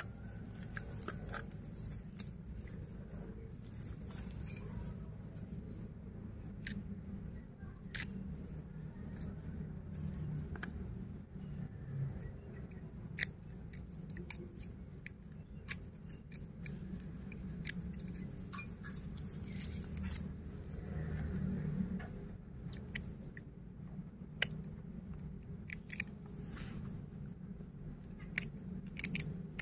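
Irregular small clicks and scrapes of a metal hobby knife cutting and prying at the aluminium wire and plastic tape binding a bonsai graft, with one sharper click about 13 seconds in. A steady low hum runs underneath.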